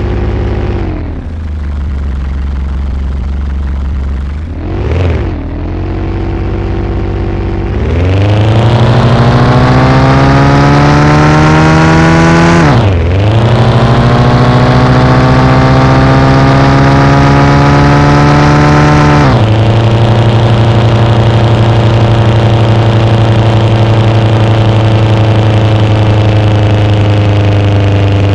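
Volkswagen Saveiro pickup's engine revving and pulling, its pitch climbing steadily from about a third of the way in. The pitch drops sharply and climbs again near the middle, then steps down and holds steady for the rest, like gear changes under acceleration.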